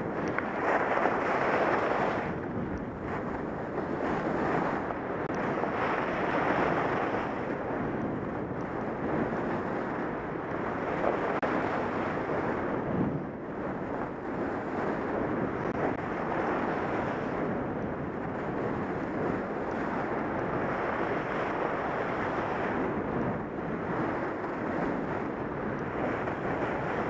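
Wind rushing over a helmet-mounted camera microphone while sliding fast down groomed snow, a steady rushing that swells and eases every few seconds.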